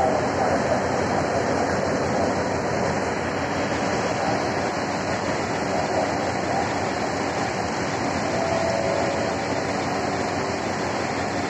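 Hitachi diesel-electric locomotive standing at the platform with its engine running, a steady, even roar with a faint hum.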